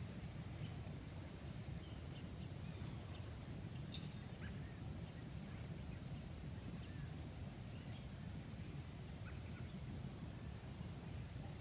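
Outdoor ambience: a steady low rumble with faint, scattered bird calls, and one sharp click about four seconds in.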